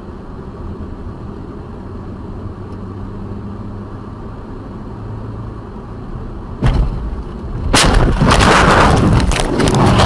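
Steady low rumble of a car on the road, then a sudden loud bang about two-thirds of the way in: a vehicle collision. A second or so later comes a loud, harsh crashing noise that lasts a couple of seconds.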